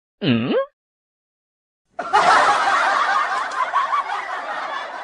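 A short sliding-pitch sound, then after a second of silence several people laughing together for about three seconds, fading toward the end.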